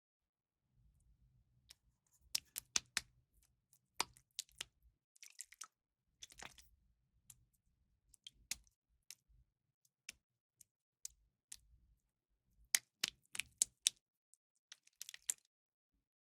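Scattered sharp clicks and taps of small hard parts being handled, some in quick clusters, over a faint low hum that comes and goes.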